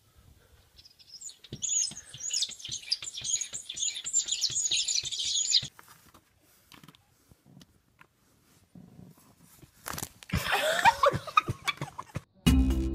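High-pitched animal chirping and squeaking in a rapid run of a few seconds. After a pause comes a shorter, lower call that glides up and down in pitch, and music cuts in at the very end.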